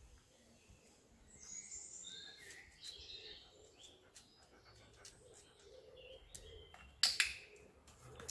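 Birds chirping through the first few seconds. About seven seconds in comes a loud, sharp double click from a dog-training clicker, the mark that rewards the dog's offered behaviour.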